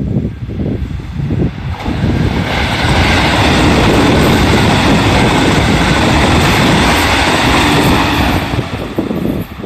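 A JR 313 series electric train passing close by. Its rumble builds over the first two seconds, the noise of the passing cars is loud and steady for about six seconds, then drops away near the end.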